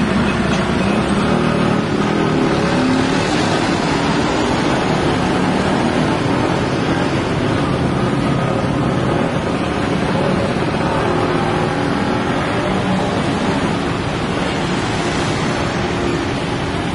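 Steady engine and traffic noise: a Hitachi Zaxis 75 compact excavator's diesel engine running, with cars passing on the road close by.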